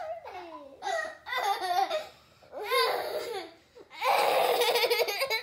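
Young girls laughing hard in several bursts, the longest a loud run of pulsing laughter near the end.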